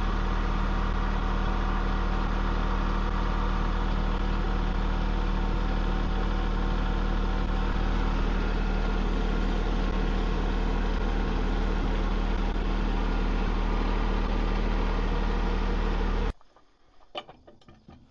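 Tractor engine running steadily at a constant speed, a low even drone that cuts off abruptly near the end, followed by a few faint knocks.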